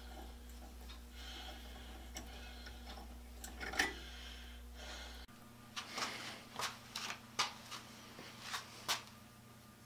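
Light metallic clicks and rubbing from handling a threaded steel linkage rod and its fittings, with one loud click about four seconds in and a run of sharp clicks in the second half.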